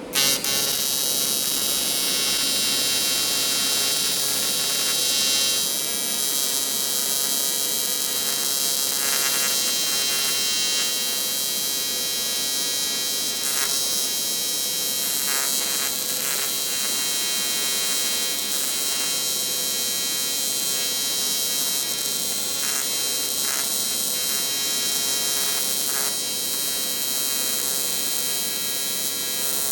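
Aluminum welding arc burning steadily for one long bead, a constant buzzing hiss with an electric hum, struck at the very start and broken off abruptly at the end.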